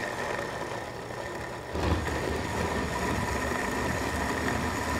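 Arno countertop blender's motor running at speed, liquefying chopped pineapple with water, sugar and chillies into a frothy liquid; a steady whine that gets louder and heavier about two seconds in.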